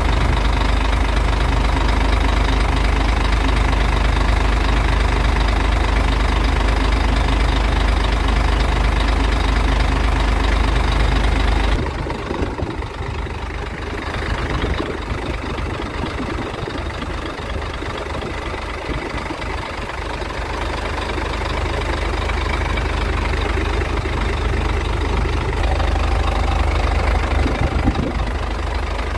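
Scania R truck's diesel engine idling steadily, heard from beneath the chassis. The deep low rumble drops away suddenly about twelve seconds in, then slowly builds back up.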